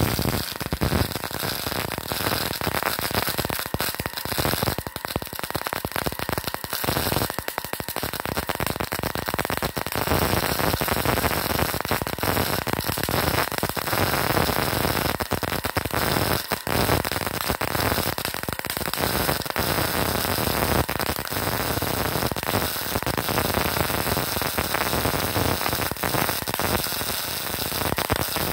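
A 450-watt MIG welder's arc crackling continuously as a weld bead is laid.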